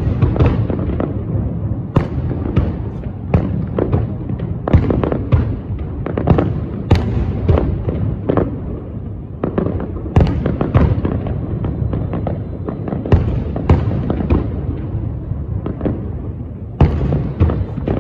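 Aerial firework shells bursting in a sustained display: many sharp bangs in quick succession, some close together and some spaced out, over a continuous rolling rumble.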